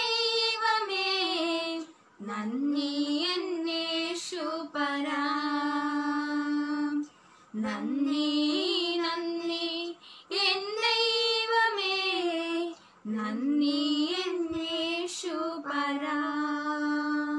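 Two women singing a Malayalam Christian worship song together, unaccompanied, in phrases of a few seconds with long held notes and short breaths between them.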